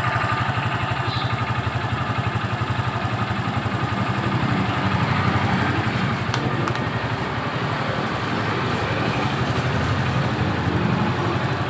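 Honda Supra X 125 FI's single-cylinder four-stroke engine idling steadily, a fast even pulse.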